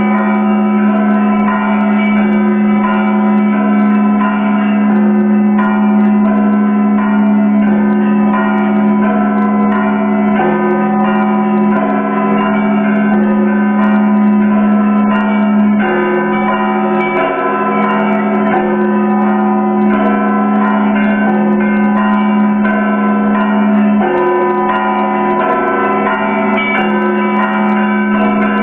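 Russian Orthodox monastery bells rung together in a continuous peal (zvon). A deep bell's tone hums steadily underneath while smaller bells are struck rapidly over it.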